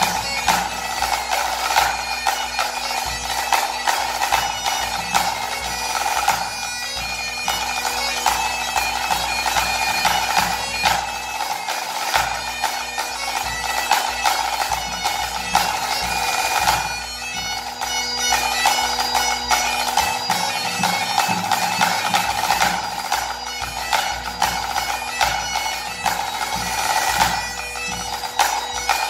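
Great Highland bagpipe playing a tune over its steady drone, with a pipe-band snare drum and bass drum beating along.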